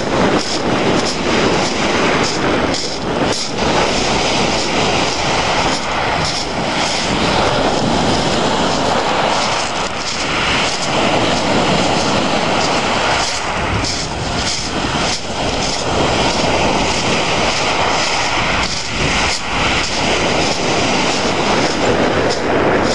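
Wind buffeting the microphone in steady gusts over lake waves breaking and washing on a pebble shore.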